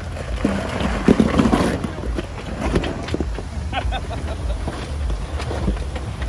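Jeep Wrangler Rubicon crawling slowly over rocks, its engine rumbling low under knocks and scrapes of the tyres and underbody on rock, the sharpest knock about a second in. Wind rumbles on the microphone.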